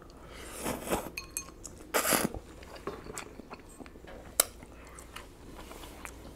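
Ramen noodles being slurped and eaten close to the microphone: two hissing slurps, the louder about two seconds in, then softer chewing and mouth sounds with a few sharp clicks and clinks of a plastic fork against a glass bowl.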